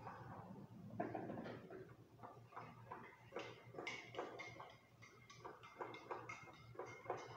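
Faint clinks and taps of kitchenware, a ceramic mug among it, a few a second from about halfway through, some of them leaving a short high ring.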